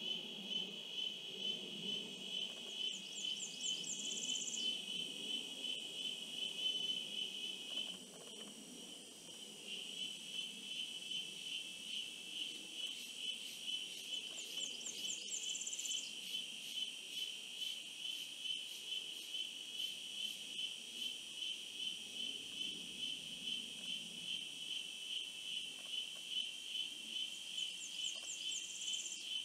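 Steady insect chorus, a high buzzing trill pulsing about twice a second, which drops away briefly about eight seconds in. A higher, shorter trill comes three times, about twelve seconds apart.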